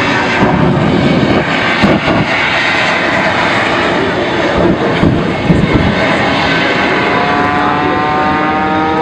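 The Shockwave jet truck's three afterburning Westinghouse J34-48 turbojets running at full power: a loud, steady jet roar, rough and crackling in the first couple of seconds. About six seconds in, a whine of several tones joins it.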